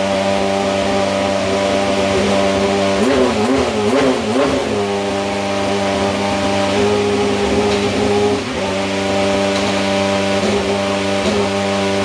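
Toyota TS040 Hybrid's 3.7-litre V8 idling steadily while the car is stationary, with light throttle blips that make the pitch waver a few seconds in and a brief dip about eight seconds in.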